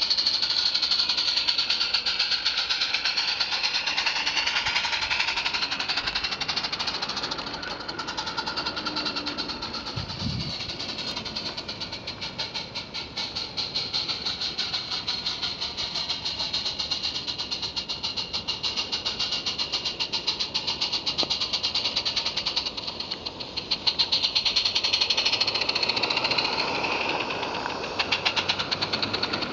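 A small live-steam garden-railway locomotive (16 mm scale on 45 mm gauge track) running with a train of bogie wagons. It gives a rapid, steady chuffing exhaust beat that swells and fades as the train comes near and moves away, and grows louder again near the end.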